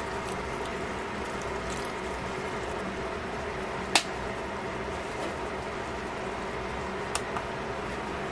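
Chicken pieces sizzling in a stainless steel pan, a steady hiss over a faint hum, with one sharp click about four seconds in and two small ticks near the end.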